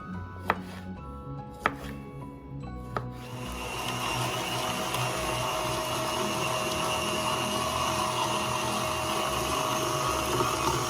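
Knife chops on a cutting board over background music, three sharp chops about a second apart. About three and a half seconds in, a small electric kitchen appliance's motor starts and runs steadily, louder than the music.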